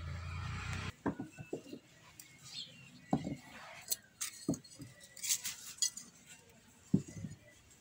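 Small plant pots being handled: a string of separate sharp knocks and clinks as they are picked up and set down. A low hum stops about a second in.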